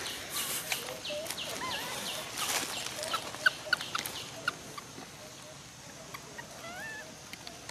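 A scatter of short animal chirps, clicks and clucking calls, busier in the first half and thinning out after about five seconds.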